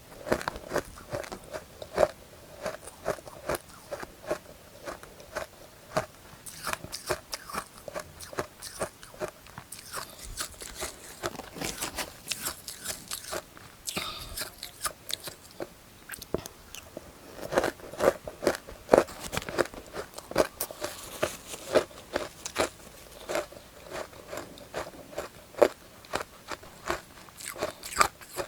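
Close-miked chewing of matcha-powdered ice: a rapid, uneven run of sharp crisp crunches, with softer hissing crunches in two stretches, about a third of the way in and again past two-thirds.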